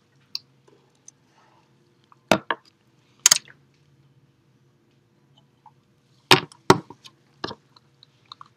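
Drink can being picked up from and set back down on a lectern: a few sharp knocks and clicks about two seconds in and again about six seconds in, over a faint steady hum.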